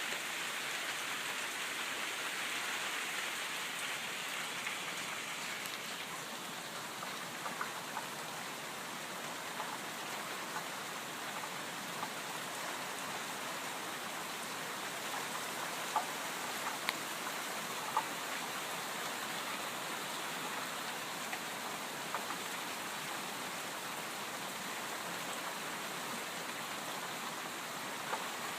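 Steady light rain falling, with scattered sharp drips; three louder drops stand out a little past the middle.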